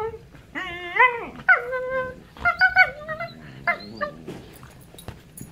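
Siberian huskies 'talking': a run of about five short pitched calls that bend up and down, fading out after about four seconds.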